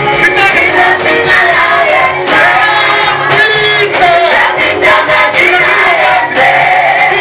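A group of voices sings a worship song together over instrumental accompaniment with a steady beat.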